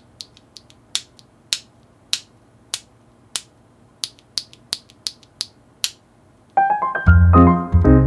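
A run of sharp, light clicks at an uneven pace, about two a second, from handling mechanical keyboard parts. About six and a half seconds in, piano-like music with a bass line comes in and is louder than the clicks.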